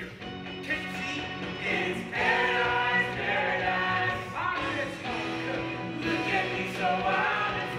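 Stage musical ensemble singing together over instrumental accompaniment: a chorus of voices in a song-and-dance number.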